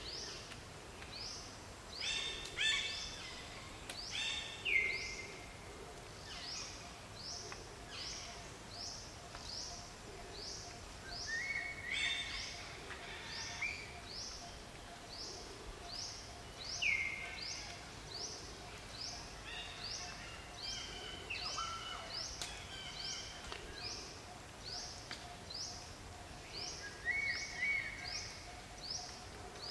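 Forest ambience: a short, high rising chirp repeats steadily about twice a second, with scattered louder bird calls over it and a faint steady hum underneath.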